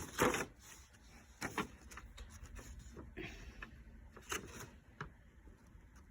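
Handling noises: a few light clicks and short rubs as the smoke alarm, its manual and packaging are moved about.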